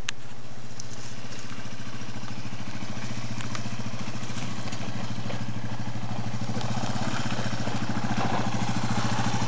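Yamaha XT225 Serow's single-cylinder four-stroke engine running steadily as the trail bike descends slowly, growing a little louder near the end as it approaches, with a few short clicks.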